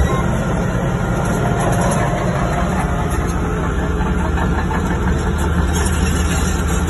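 Heavy diesel engine running steadily at a low, even pitch.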